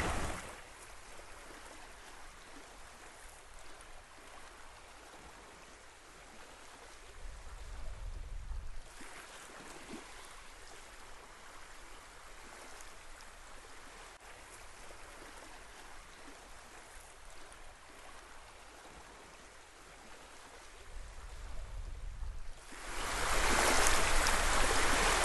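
Faint, steady wash of small lake waves lapping on a pebble shore, growing louder in the last couple of seconds.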